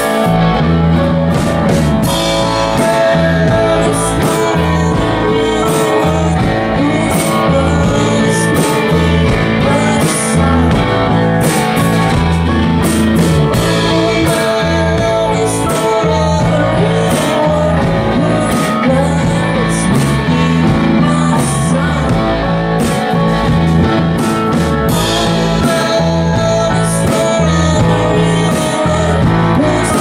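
A live rock band playing loudly: electric bass, keyboard and drum kit with a male singer's vocal, recorded from the room.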